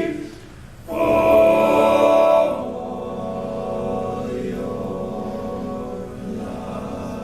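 All-male a cappella group singing a wordless chord. It swells loud for about a second and a half after a brief dip, then settles into a softer held harmony.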